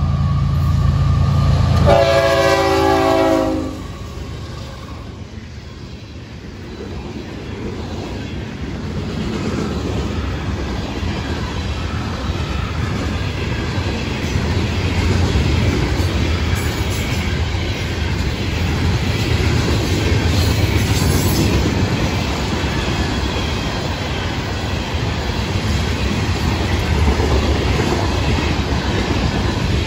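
Florida East Coast freight train passing close by at about 47 mph. The GE ES44C4 lead locomotives sound a horn blast over their diesel rumble, and it cuts off about three and a half seconds in. Then a long string of hopper and tank cars rolls past with steady wheel rumble and clickety-clack over the rail joints.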